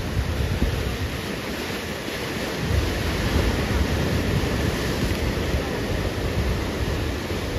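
Ocean surf breaking and washing in steadily, with wind gusting on the microphone as a low rumble.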